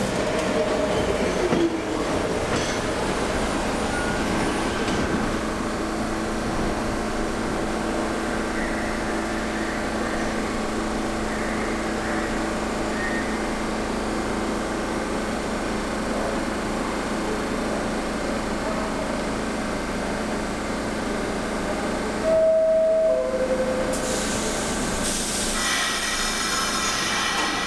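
NYC Subway R46 train running on the rails, a steady rumble with a constant low hum. About 22 s in comes a short, louder two-note tone falling in pitch, and near the end a high ringing squeal sets in.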